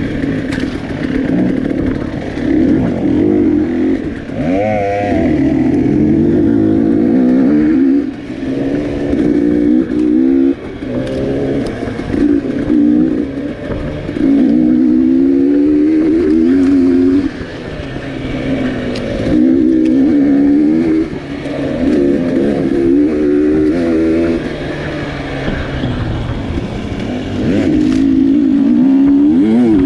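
Close-up dirt bike engine on the trail, its pitch rising and falling over and over as the throttle is opened and closed, with a few sharp knocks along the way.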